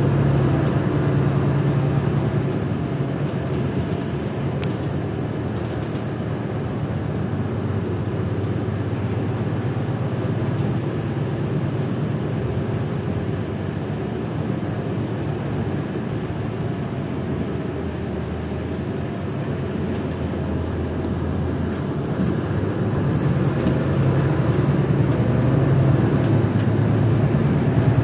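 Steady engine and road noise from inside a moving vehicle. A low engine hum is strongest at the start and again near the end, and eases off through the middle.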